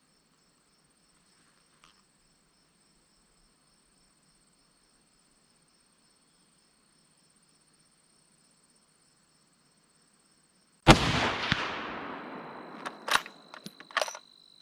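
Insects trilling steadily and faintly. About eleven seconds in, a single loud shot from a Franchi Momentum All-Terrain Elite .308 bolt-action rifle rings out and echoes away over a second or two, followed by a few sharp clicks.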